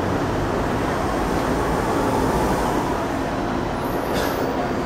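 A New York City subway train of R32 cars running on the elevated track, a steady rumble and rattle of wheels on rail. About four seconds in there is a brief high-pitched whine.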